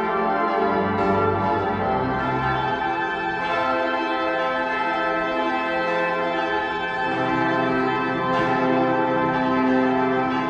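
Church organ playing slow, sustained chords that change about two thirds of the way through, with a sharp new attack every few seconds.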